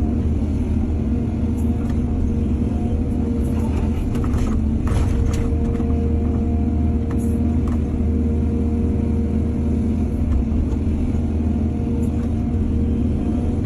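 Heavy diesel engine of an excavator running steadily under load, with a few short knocks and scrapes, the strongest about four to five seconds in.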